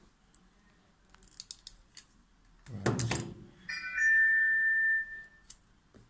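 Light clicks and a short clatter as a hand-held crimping tool is handled and set down on a desk, then a steady electronic beep at one pitch lasting about a second and a half, the loudest sound here.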